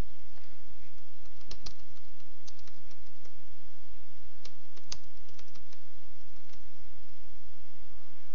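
Computer keyboard typing: a short run of irregular keystroke clicks as a line of text is typed, over a steady low background hum.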